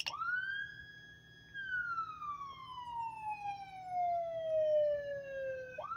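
Whelen Carbide electronic siren sounding its wail tone: the pitch climbs quickly, holds high for about a second and a half, sinks slowly over about four seconds, then climbs again near the end. A short button click at the start switches the tone on.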